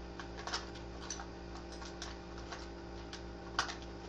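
Light, irregular clicks and taps of makeup items and cases being handled while a brush is picked out, over a steady low hum.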